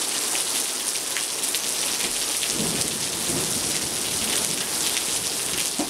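Steady rain falling, with single drops ticking close by. About two and a half seconds in, a low rumble of distant thunder swells and fades over a second or so.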